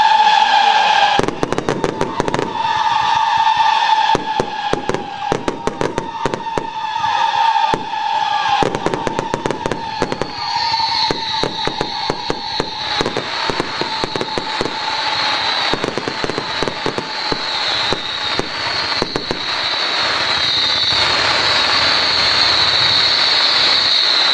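Fireworks finale firing: a dense run of bangs and crackling bursts over long, steady whistling tones that hold for many seconds; a higher whistle comes in about halfway.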